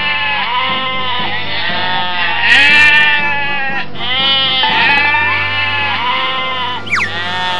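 Children's background music with a recurring arching, bleat-like call about every second and a half over a steady low drone. A short rising whistle-like glide comes near the end.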